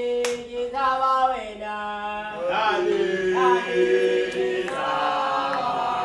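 Unaccompanied group singing: voices chanting a song in long held notes, with more voices layering in about halfway through.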